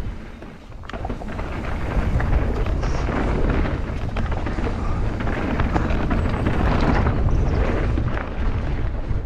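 Mountain bike descending a trail at speed: heavy wind rumble on the microphone over tyre noise and the clatter of the bike over rough ground, building about a second in.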